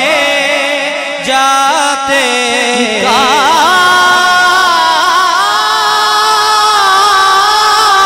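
A male naat reciter sings a long, drawn-out melismatic note, amplified through a microphone. About three seconds in his voice breaks into quick wavering ornaments, then settles into a long steady held note.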